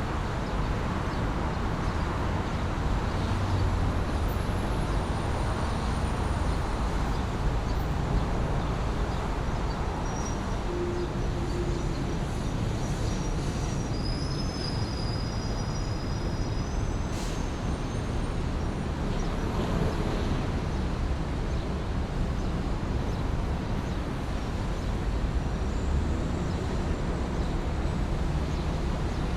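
Busy downtown street ambience: a steady rumble of passing traffic. A few faint high squeals come through about halfway, with a single sharp click just after.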